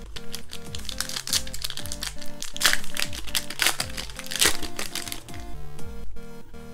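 Plastic trading-card booster pack wrapper being torn open and crinkled, a dense crackling that is loudest in the middle and fades out about a second before the end, over 8-bit lo-fi background music.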